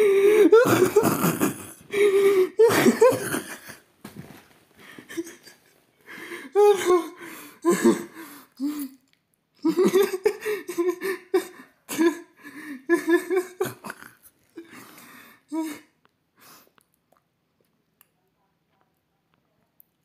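A person laughing hard, wheezing and gasping in fits that die away after about 16 seconds.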